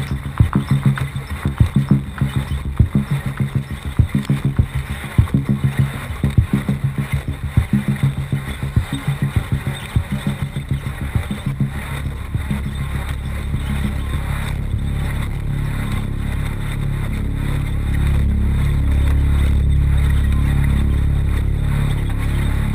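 Off-road race car engine running hard, its sound pulsing rapidly and unevenly for the first half, then settling into a steadier, louder drone.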